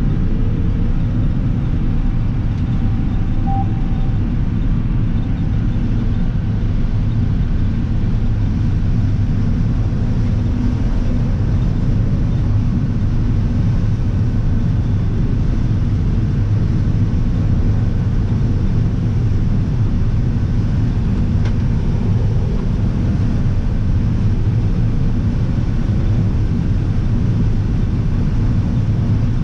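Combine harvester running under load while shelling corn: a steady, even low rumble of engine, header and threshing cylinder.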